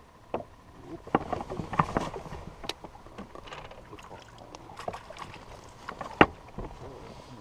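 Irregular knocks and clatter of gear on a fishing boat, with water splashing, as a hooked fish is brought alongside and scooped with a landing net. A sharp knock about six seconds in is the loudest.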